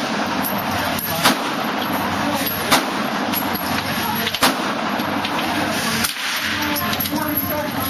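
Savage 64 FXP .22 LR semi-automatic rifle fired three times, about a second and a half apart, over steady background noise.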